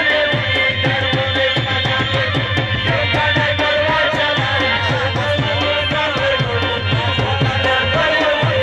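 Live amplified folk music: a drum beating a quick, even rhythm under steady held melody tones.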